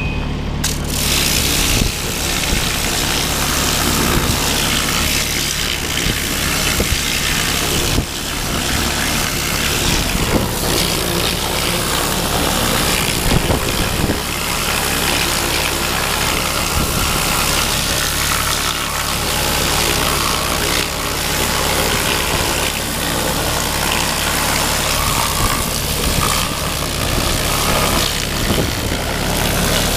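Pressure washer jet spraying hard against a mini excavator's valve body and undercarriage, a loud steady hiss that starts about a second in, with an engine running steadily underneath.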